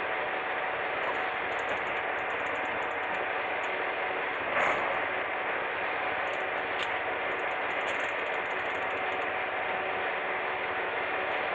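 A motor running steadily under a rushing hiss, with a single knock about four and a half seconds in.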